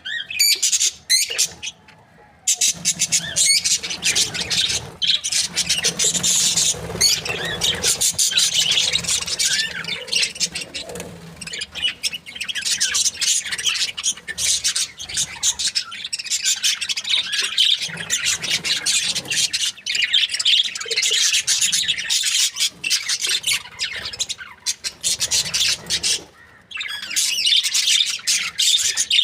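Budgerigars chirping and chattering in a rapid, continuous stream of high chirps and squawks, with short lulls about two seconds in and again near the end.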